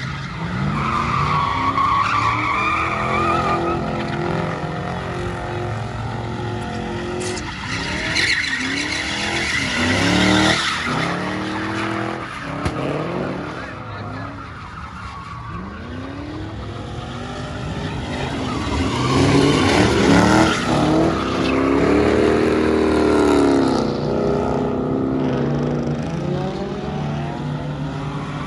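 Car engine revved up and down again and again, its pitch rising and falling in repeated sweeps, with tyre squeal, as in burnouts or drifting. The revving is loudest about two-thirds of the way through.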